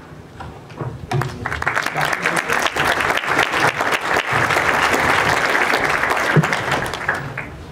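Audience applauding: many hands clapping, starting about a second in, holding steady, then fading out near the end.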